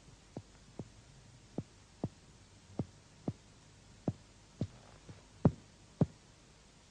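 Quiet finger-on-finger percussion of the chest wall: about eleven short taps, mostly in pairs roughly half a second apart. This is topographic percussion marking the lower border of the lung at full exhalation.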